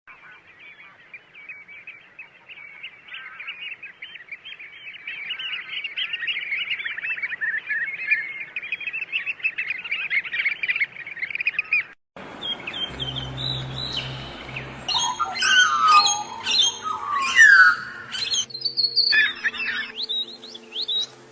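A dense chorus of many small birds chirping rapidly, growing fuller over the first twelve seconds. After a brief break, louder and more varied bird calls and squawks with sweeping pitch, over a steady low hum.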